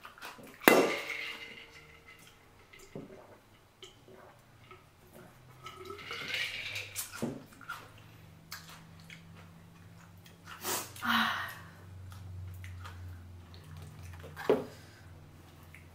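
Close-up eating sounds: wet chewing, slurping and squishing of butter-sauced seafood, with scattered sharp clicks.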